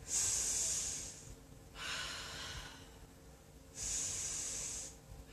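A woman's audible breathing: three long breaths, each lasting about a second, the first and last the louder.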